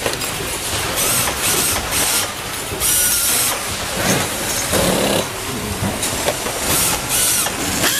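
Power screwdriver driving screws into concealed cabinet hinge parts held in a steel jig, in a series of short bursts, over steady factory machinery noise.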